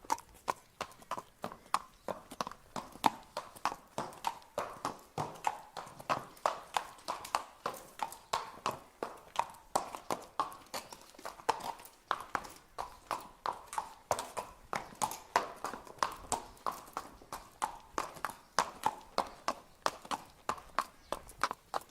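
Horse walking, its hooves clip-clopping in a steady, even rhythm of about three to four hoof strikes a second.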